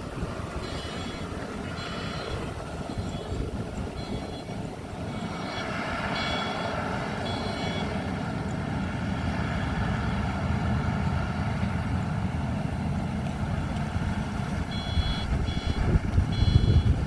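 A Maxxi Bimo 102 rice combine harvester running, its engine a steady rumble, with a reversing alarm beeping in several spells of evenly spaced beeps.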